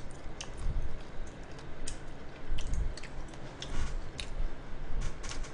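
Close-miked chewing of grilled skewer meat, with soft irregular wet clicks and smacks of the mouth.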